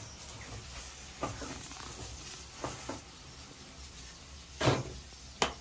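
Chapati frying in oil in a stainless-steel pan on a gas stove, a light steady sizzle. There are a few short knocks as the flatbread is pressed and turned, and the two loudest come near the end as a cooked chapati is lifted onto a metal plate.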